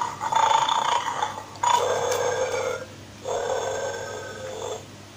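Electronic sound from a battery-powered toy guard dog in a bone-stealing game, playing through its small speaker while switched on: a buzzy tone that comes in four stretches about a second long, with short gaps between them.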